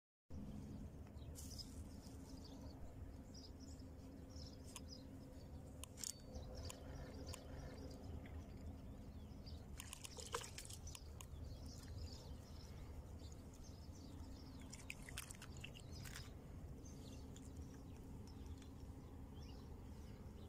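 Faint outdoor ambience: a low steady rumble with scattered small clicks and rustles, and a light splash in the water about ten seconds in.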